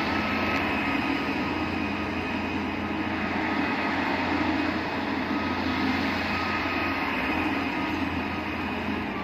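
Diesel engines of a Hitachi excavator and a tractor running steadily, a low engine hum with a faint thin steady whine above it.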